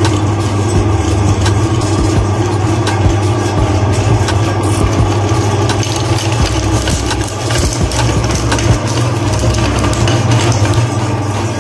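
Electric meat grinder running with a steady motor hum while its auger crushes hard chocolate cone candies and their plastic toy sticks, giving frequent sharp cracks and crunches.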